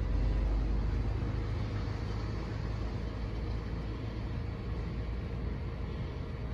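Steady low mechanical rumble with a faint hum, easing off slightly over the seconds.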